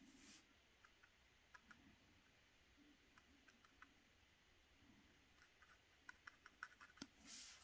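Near silence, with faint scattered small clicks from a fine watercolour brush dabbing paint on sketchbook paper; they come more often toward the end. A brief hiss comes near the end.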